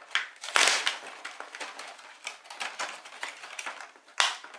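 Hard plastic parts of a NERF Sledgefire toy blaster and its shells being handled: a loud clatter about half a second in, a run of light clicks and taps, and a sharp knock near the end.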